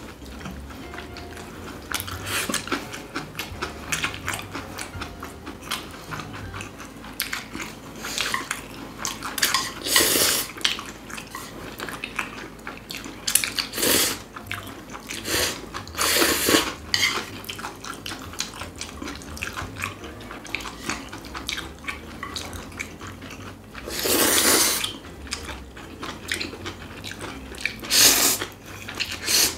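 Bibim noodles being slurped in several loud slurps of up to a second each, with chewing between and chopsticks and spoons clicking against ceramic bowls.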